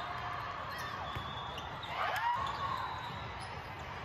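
Indoor volleyball rally: the ball being played and sneakers squeaking on the sport-court floor, with a burst of squeaks about halfway through, over the steady background noise of the hall.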